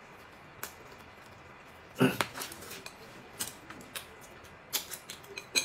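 Chopsticks clicking and tapping against ceramic plates in a run of short, sharp clicks, with one brief louder noise about two seconds in.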